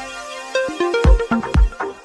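Electronic background music. A low drone fades away, short synth notes start about half a second in, and a kick-drum beat comes in about a second in at roughly two beats a second.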